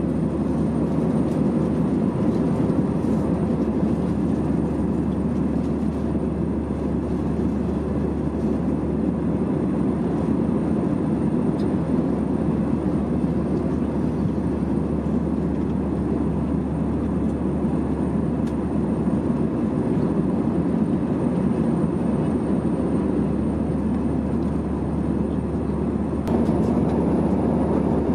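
Steady cabin noise of an Airbus A320-214 in cruise, heard from inside the cabin: an even rush of airflow and engine drone, with faint steady hums above it.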